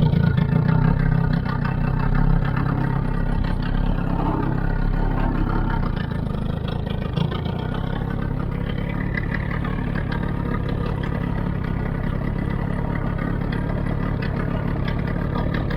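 Charter fishing boat's engine running close by: a steady, low hum, strongest in the first few seconds and then easing slightly.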